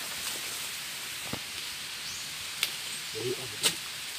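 A small hand tool digging into stony soil around a plant's base: a few sharp clicks and scrapes, the loudest near the end, over a steady high hiss.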